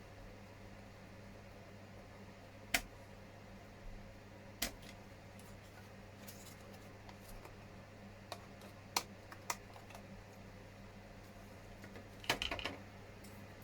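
Hard injection-moulded plastic model parts clicking and tapping as they are handled and snapped together: a few single clicks, then a quick cluster of clicks near the end. A low steady hum runs underneath.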